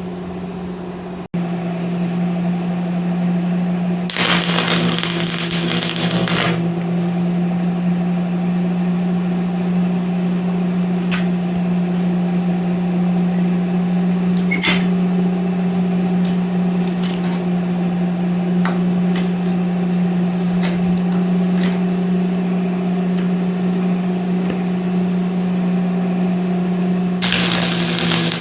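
Welder humming steadily while tack-welding a bolt stub onto a steel shaft end: two bursts of arc crackle, one about 4 seconds in lasting a couple of seconds and another starting near the end, with a few light clicks in between as the shaft is handled.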